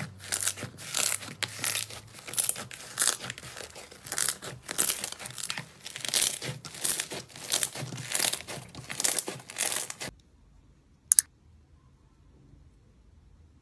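Slime being poked and squeezed by hand, giving crisp squishing bursts at about two a second. About ten seconds in it stops, leaving near silence broken by one sharp click.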